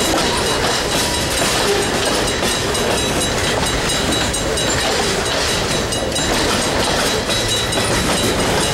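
Freight train cars rolling past: a steady noise of steel wheels running on the rails as boxcars and lumber-loaded centerbeam flatcars go by.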